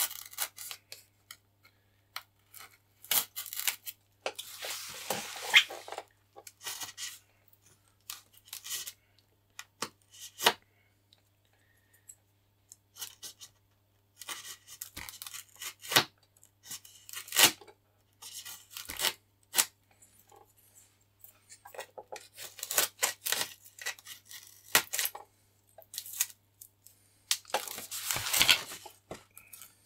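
Hand-held blade cutting and prying through the fibreglass skin and foam core of a damaged model glider wing: irregular scraping and tearing with sharp clicks, broken by short pauses.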